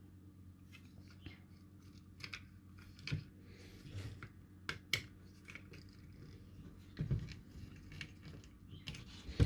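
Scattered light clicks and taps of a small circuit board and electronic components being handled and set down on a workbench, over a faint steady hum.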